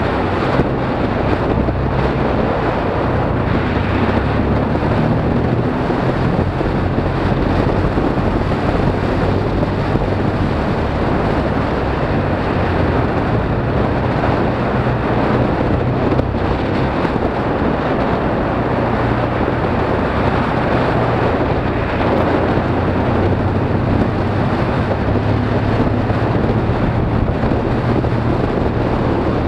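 Motorcycle engine running steadily under way, with wind noise rushing over the microphone.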